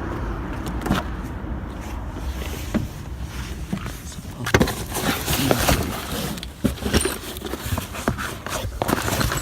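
Irregular knocks and clicks over a steady low rumble.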